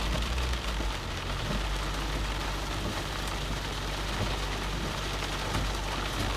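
Rain on a moving car and tyres on a wet road, heard from inside the cabin as a steady hiss over a low, even engine hum.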